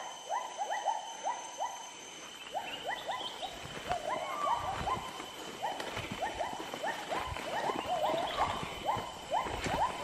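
A dense chorus of short, hooked calls from forest animals, several a second, with a steady high tone underneath. Scattered soft thuds and rustling of footsteps through undergrowth.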